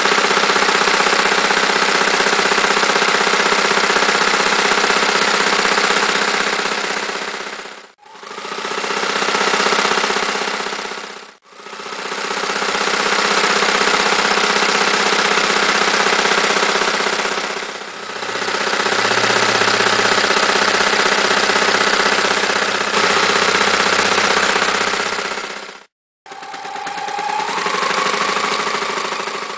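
Frister Rossmann Cub 4 electric sewing machine running at speed, its needle stitching rows of decorative and zigzag test stitches through fabric. It runs in long spells, stopping briefly about 8 seconds in, again about 11 seconds in and near the end, and speeding back up each time the pedal is pressed again.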